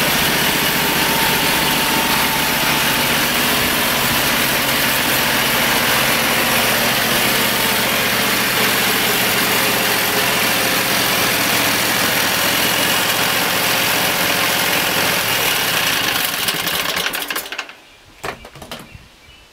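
Homemade bandsaw sawmill running steadily on its 22-horsepower V-twin engine, the band blade sawing lengthwise through a hemlock cant. The sound cuts off suddenly about two seconds before the end, leaving a few faint clicks.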